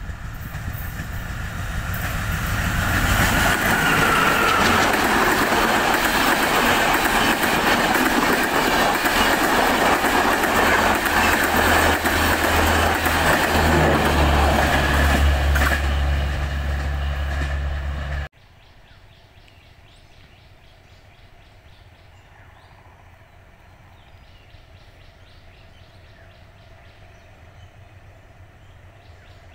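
Maitree Express passenger train rolling past close by: the noise of the wheels and coaches builds as it arrives and stays loud, with a low steady hum joining near the end. About 18 seconds in it cuts off abruptly to quiet open-air background.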